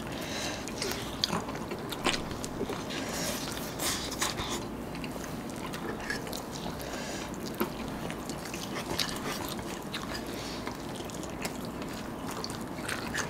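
Several people biting and chewing crispy fried chicken and French fries, with scattered short crunches throughout.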